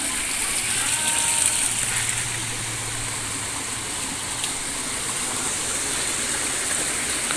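Steady rushing of water flowing in a drainage ditch after rain, with a faint low hum that fades out about four seconds in.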